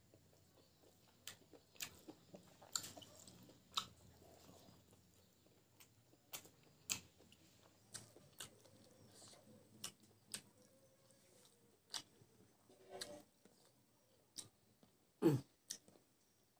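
Close-miked chewing of pig intestine and rice, with scattered short wet mouth clicks and smacks; the loudest smack comes near the end.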